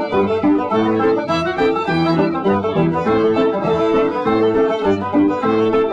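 Instrumental background music: a steady, quick run of pitched notes.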